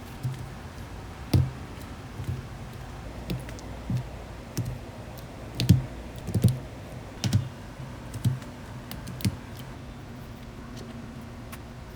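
Single key presses on a KBD67 Lite mechanical keyboard with Gateron Yellow linear switches and stock stabilizers, about a dozen short clacks at irregular intervals, pressed one at a time to test the stabilizers.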